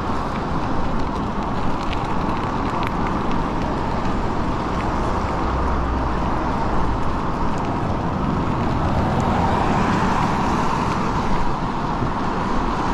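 Steady riding noise from an e-bike moving along a wet road: wind rush on the microphone and tyres on wet pavement, with road traffic. A faint steady whine sits under the noise.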